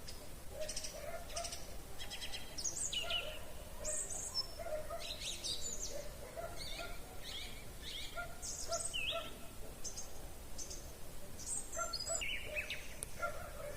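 Songbirds singing in a spring chorus: many short, high chirps and trills overlapping, with a lower note repeating underneath.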